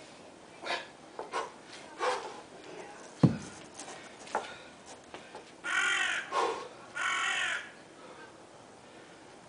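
A 24 kg kettlebell is set down with a single heavy thud about three seconds in. A few seconds later come three harsh calls from a cawing bird, the last two in quick succession.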